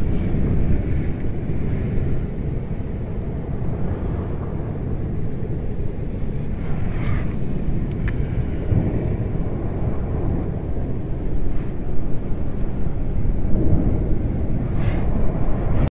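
Sea wind buffeting the microphone as a steady low rumble, with surf washing on a rocky shore underneath.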